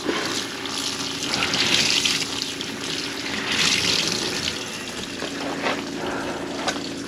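Water running from a faucet into a kitchen sink, swelling twice, over a steady low hum.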